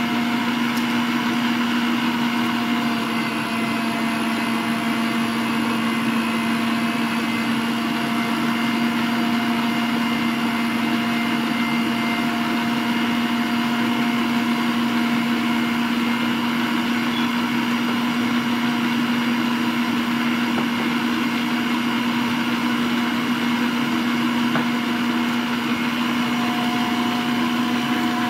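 Frigidaire stand mixer running steadily at a constant speed, its motor giving a loud even hum as the beater creams butter in the steel bowl.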